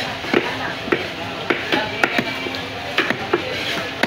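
Large fish knife chopping through a boal catfish and striking a wooden chopping block, cutting it into steaks. It makes a steady run of sharp chops, about two a second.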